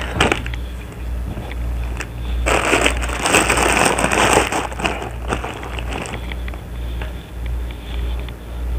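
Clothes and crinkly plastic snack packets rustling and crackling as they are pushed and pressed down into an open suitcase, loudest for about two seconds in the middle, over a low steady hum.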